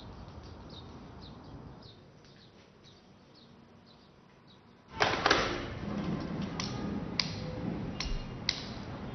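Faint birds chirping for about five seconds. Then a louder room background with a series of sharp clicks, the last of them a small button on a desk being pressed.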